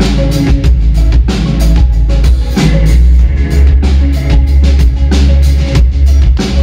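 Live synth-pop band playing, recorded from the audience: a steady drum beat with electric guitar and a male singer at the microphone, the bass heavy and booming.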